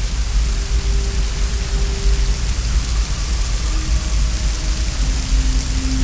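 Steady rushing of a waterfall with a deep rumble, under a few faint, long-held tones of ambient music.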